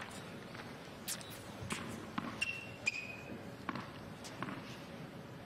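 A tennis ball bounced on an indoor court several times before a serve, as a string of short, sharp knocks. Two brief high squeaks come in near the middle.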